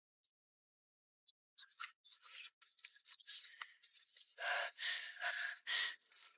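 Sheets of paper rustling and being handled in a string of short scrapes, louder and closer together in the second half.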